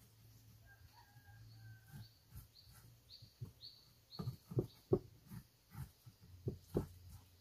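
A knife cutting beef on a wooden plank, with a string of dull knocks against the board from about four seconds in, the loudest sounds here. Before that, a bird calls a quick run of short falling chirps.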